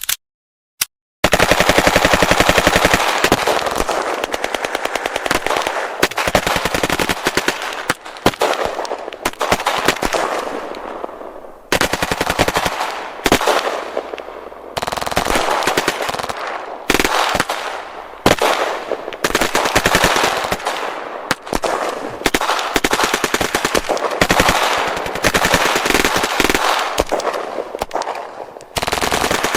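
Rapid-fire shots, as from automatic gunfire, in long strings broken by brief pauses, starting about a second in.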